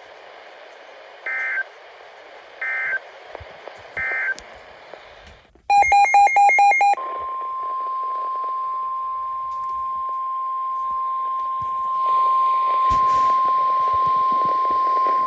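NOAA Weather Radio alert tones over radio hiss. First come three short data bursts, the EAS end-of-message code closing the previous warning. About six seconds in there is a brief run of rapid beeps. Then the long, steady 1050 Hz warning alarm tone begins, announcing the next warning.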